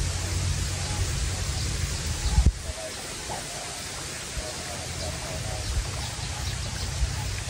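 Wind buffeting the microphone outdoors: a steady rushing hiss with an uneven low rumble, broken by a brief knock about two and a half seconds in, after which the rumble eases.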